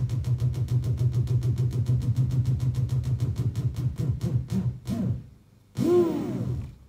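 Cassette tape player whose motor is driven by control voltage from a modular synthesizer, giving a low droning tone chopped by rapid, even clicking that slows down before the sound cuts out. About a second later a short burst of tape sound swoops up in pitch and falls back.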